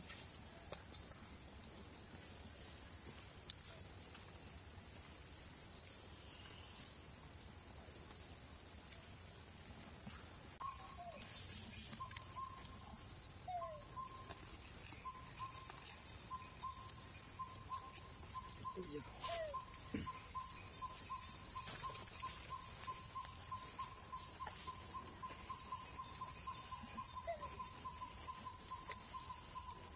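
Faint, steady high-pitched drone of insects. About ten seconds in, a lower, rapidly pulsing note joins in and keeps going, with a few short chirps here and there.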